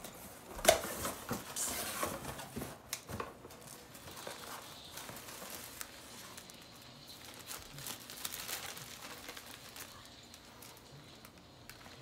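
Clear plastic plant sleeves crinkling and cardboard shipping box rustling as a potted plant is lifted out of the box. Sharp crackles come close together in the first few seconds, then settle into softer rustling.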